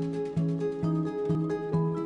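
Background music: plucked guitar notes over a steady, repeating bass note about twice a second.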